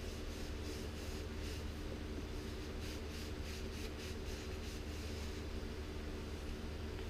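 A cloth rubbing cutting board oil onto a wooden spatula: soft wiping strokes, about two a second, that stop about four and a half seconds in. A steady low hum runs underneath throughout.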